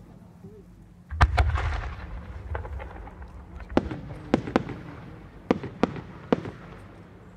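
A No. 8 (8-inch) aerial firework shell is fired from its mortar with a deep boom about a second in. Then come six short, sharp cracks as the small rising effects attached to the shell burst on its way up.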